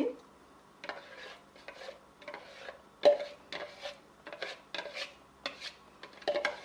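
A metal spoon scraping and knocking on cookware as smooth blended curry gravy is transferred back into the pan. Irregular scrapes and light clinks, with one sharper knock about three seconds in.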